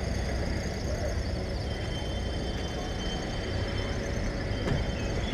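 Steady low background rumble, with a faint high steady whine that comes in about two seconds in.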